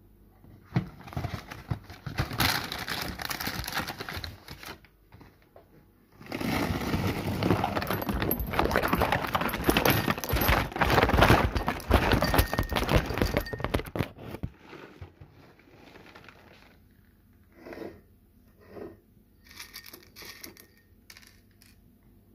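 Crinkling and rustling of a plastic cereal bag being handled, and Honey Cheerios rattling into a ceramic bowl, in two long stretches; then a few scattered light taps near the end.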